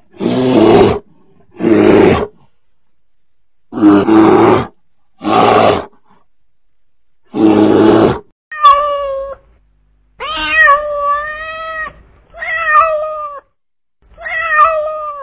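Five rough bear growls, each about a second long, then, from about halfway through, four cat meows. The second meow is long and drawn out.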